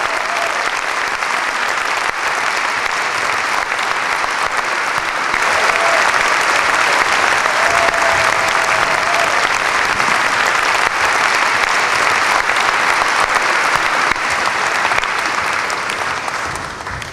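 Large audience applauding, swelling louder about five seconds in, with a short steady tone heard over it about eight seconds in; it begins to fade away near the end.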